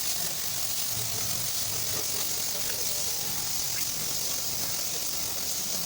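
Steady high-pitched hiss of compressed air.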